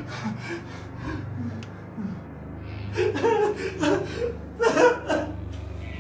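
A man's wordless vocal sounds: gasps and grunting breaths, louder and more agitated from about three seconds in, over a low steady hum.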